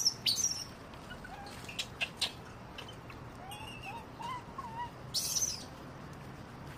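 Scattered high-pitched animal calls: short squeaks and chirps, a run of small wavering calls in the middle and a sharper high squeal a little after five seconds.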